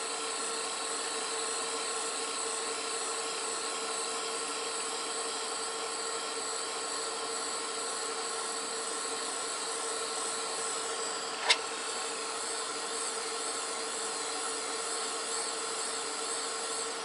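Bernzomatic ST500 butane soldering torch running with its tip off as a heat gun: a steady hiss with a thin, even whine. A single sharp click about eleven and a half seconds in.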